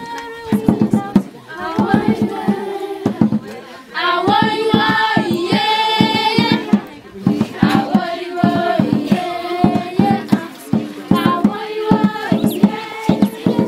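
A group of schoolgirls singing a Kalenjin traditional song in chorus, with rhythmic hand-clapping. The singing swells to its loudest and fullest about four seconds in.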